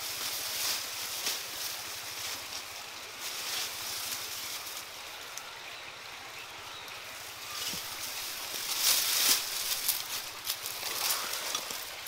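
Dry grass and leaves rustling and crackling as they are pushed aside and handled, with a louder burst of crackling about nine seconds in.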